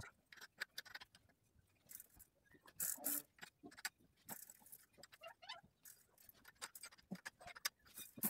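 Scattered clicks, taps and scrapes of hands and a tool working at a bicycle's rear axle, chain-tension adjuster and chain, slackening an over-tight chain, with a louder knock about three seconds in.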